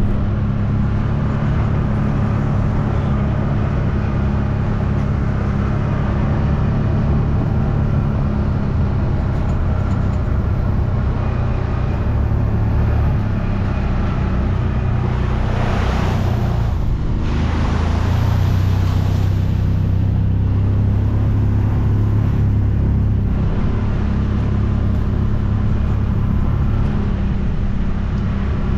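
Side-by-side utility vehicle's engine running steadily as it drives along a rough trail, with road noise under it. A little past halfway there is a brief rushing noise, and the engine note dips and then settles again.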